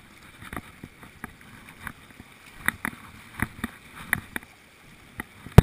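Footsteps and scuffs on riverbank rocks, heard as irregular short knocks, with one much louder bump right at the end.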